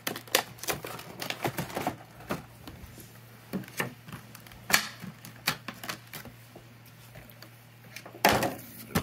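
Stiff clear plastic blister packaging crackling and clicking as it is handled and pried apart, in irregular snaps that are thickest in the first two seconds and again in a louder cluster near the end.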